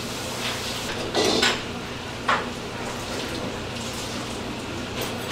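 Metal chopsticks clinking against a stainless steel bowl: a short clatter about a second in and a sharper click a little after two seconds, over a steady low hum.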